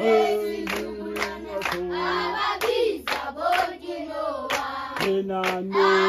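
A group of children singing a hymn together, clapping along about twice a second.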